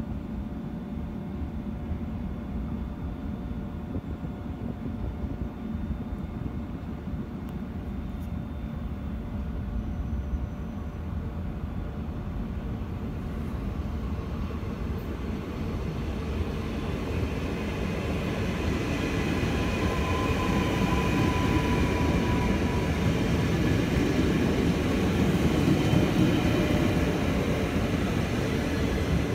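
NS VIRM double-deck electric train approaching along the platform track. Its rumble grows steadily louder through the second half, with a faint whine as it draws close.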